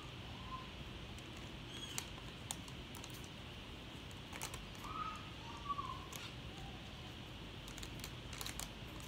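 Scattered crinkling and crackling clicks of a candy packet wrapper being picked, bitten and pulled at as someone tries to tear it open, with a few short high chirps in the background.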